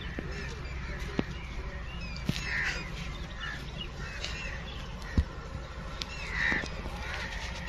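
A crow cawing twice, a few seconds apart, over a steady low background noise, with a few sharp clicks between the calls.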